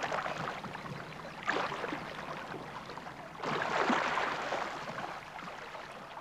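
Water splashing and rushing, swelling suddenly about one and a half and three and a half seconds in, then easing off.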